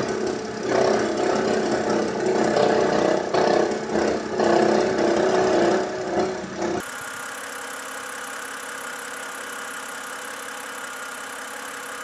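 BMW 328i E92's straight-six engine idling with a loud, uneven rattle from its failing alternator. About seven seconds in it switches to the same engine idling more quietly and steadily with a new alternator fitted, and the rattle is gone.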